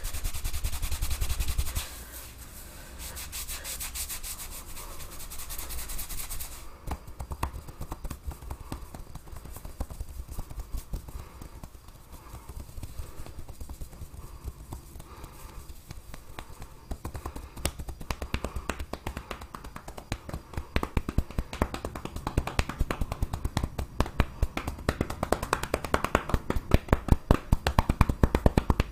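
Hands massaging a head: hair rubbed briskly against the scalp for the first few seconds, then a long run of rapid tapping and slapping strokes that grows quicker and louder toward the end.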